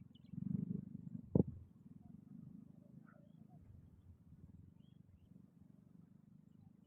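An animal's low, rattling, snore-like call, loudest in its first second and fading into fainter pulsing, with one sharp knock about a second and a half in.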